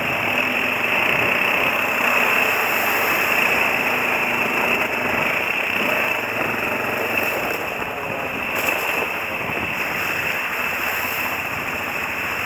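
Quad bike (ATV) engine running steadily while the bike rides along a trail, heard as a rough, even noise.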